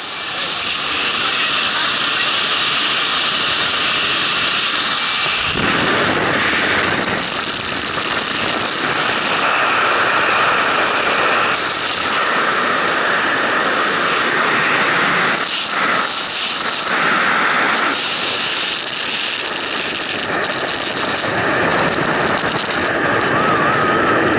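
Loud, steady rush of wind on a camera microphone: first the jump plane's engine and slipstream at its open door, then the wind of freefall after a tandem skydive exit about halfway through.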